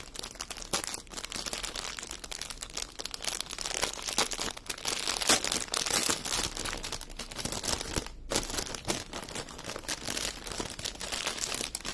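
Clear cellophane bag crinkling and rustling as it is opened and handled, the strip of small plastic drill bags inside rustling with it, with a brief pause about eight seconds in.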